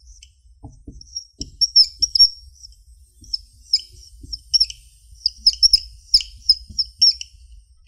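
Dry-erase marker squeaking on a whiteboard as Chinese characters are written: a run of short, high chirps in quick irregular clusters, one per stroke, with a few faint taps of the marker on the board.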